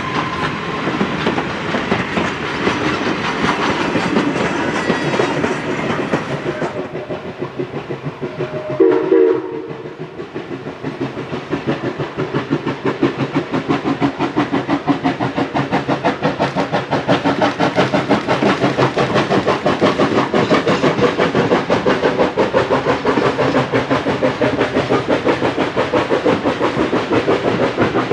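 A passing steam train's coaches and cabooses rolling and clattering over the rail joints, then a short steam-whistle blast about nine seconds in. After that comes a steady rapid chuffing from Laona & Northern No. 4, a 1916 Vulcan 2-6-2 steam locomotive, which grows louder as the train approaches and crosses a wooden trestle.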